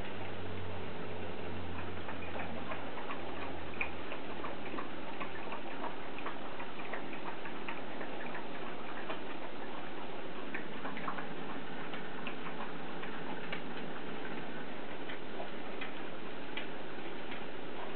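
Faint, irregular crunching clicks of a dog gnawing a dried pig ear, over a steady hiss.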